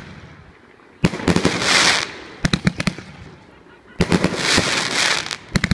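Mixed-calibre 724-shot fireworks cake (30, 38 and 50 mm tubes) firing: two volleys, about three seconds apart, each a sharp bang followed by about a second of hissing crackle and then a quick run of separate pops.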